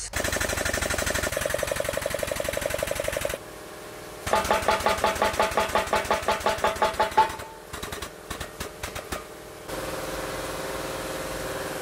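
Shop press pump running in fast even pulses as a tapered roller bearing is pressed onto a Dana 44 pinion gear. It pauses about three seconds in, then pumps again at a slower rate. A few clicks follow, then a steady hum near the end.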